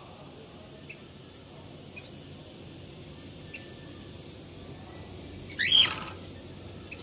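Cockatiel calling: a few soft, short chirps, then one louder rising call near the end.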